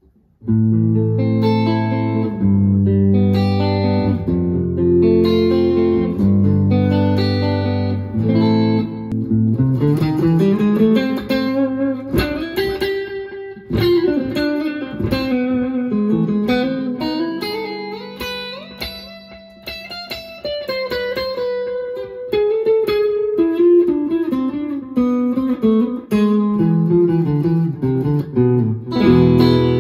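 Electric guitar played through a Valeton GP-200 JR multi-effects processor on a clean chorus preset. It starts about half a second in with ringing chords, then moves after about nine seconds to single-note lead lines whose notes glide up and down in pitch.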